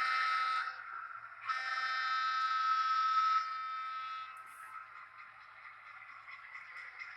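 Model diesel locomotive's electronic horn sounding through its small onboard speaker: a short blast, then a longer one that fades off, over the steady running noise of the model train.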